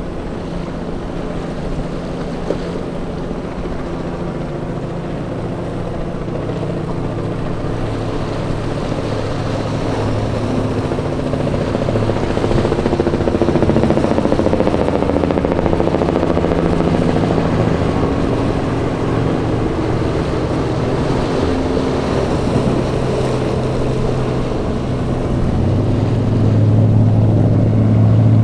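Motorboat engines running, their pitch shifting as they work, growing louder over the last few seconds.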